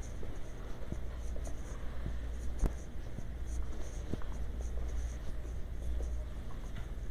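Scratchy rustling and handling noise from a body-worn camera's microphone rubbing against clothing as the wearer walks. A few soft knocks and one sharp click about two and a half seconds in sit over a steady low rumble.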